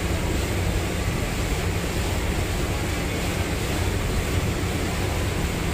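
Steady drone of a motor yacht under way: a low engine hum with water rushing along the hull and wind buffeting the microphone.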